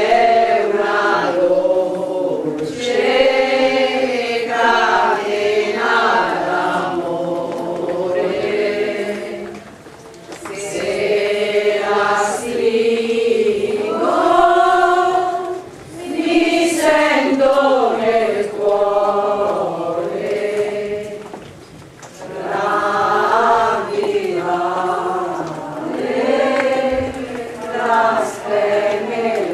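A group of walkers singing a religious hymn together in unison, line by line, with short breaks between phrases every five or six seconds.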